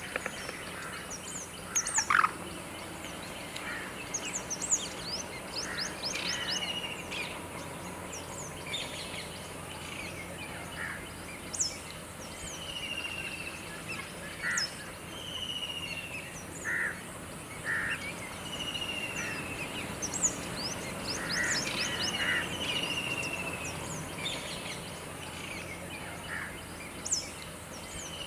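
Several birds calling over a steady background hiss: short falling whistles, quick rising chirps and brief lower notes, one every second or so.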